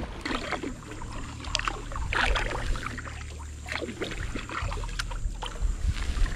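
Kayak paddle strokes dipping and pulling through calm water: irregular splashes and drips, a few each second.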